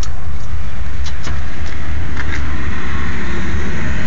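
Loud, steady low rumble with a hiss over it and a few faint clicks.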